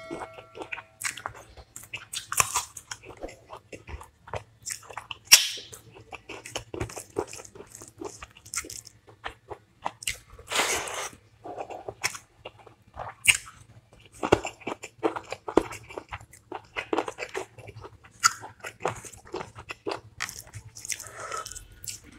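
A person eating close to the microphone: crunching bites and chewing, with many small wet mouth clicks between a few louder crunches.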